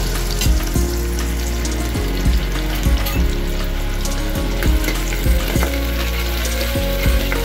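Sliced onions sizzling steadily as they fry in hot oil in an aluminium pressure-cooker pot, with a few short knocks now and then.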